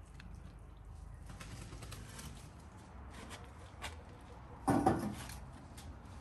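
A metal baking tray being handled and carried, with scattered light clicks and one short clatter about three-quarters of the way through.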